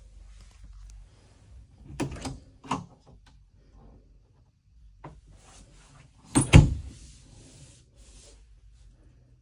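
Interior doors being handled: a wooden closet door opening with a couple of knocks about two seconds in, then a curved glass shower door sliding on its track with a hiss and a loud knock against its stop a little past six seconds.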